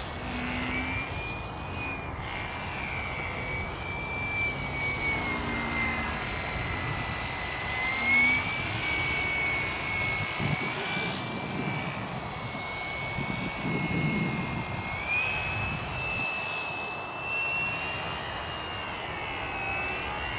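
Radio-controlled model airplane's motor and propeller whining steadily, the pitch wavering up and down with the throttle and stepping higher about fifteen seconds in.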